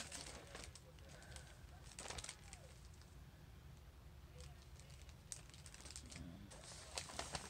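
Mostly quiet room tone with a few faint, short rustles and clicks of tissue packing paper being handled in a cardboard box.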